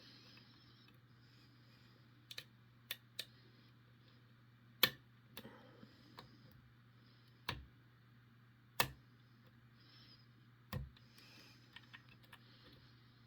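Lock pick and tension tool working the pins of a Ruko five-pin oval cylinder with barrel spools during single-pin picking: a handful of sharp, irregularly spaced clicks, a few of them louder than the rest, over a faint steady hum.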